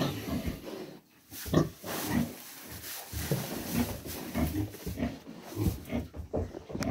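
A heavily pregnant sow, due to farrow, grunting over and over as she moves about her pen. The grunts are short and low, coming quickly and unevenly from about a second in.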